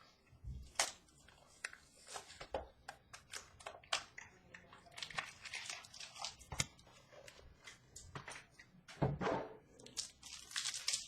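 A box of trading cards being opened by hand: wrapper tearing and crinkling, with irregular light clicks and rustles of cardboard and cards being handled.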